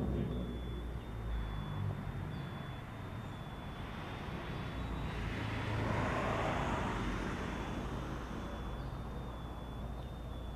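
Road traffic: a steady low rumble, with a vehicle passing by about halfway through, swelling up and fading away.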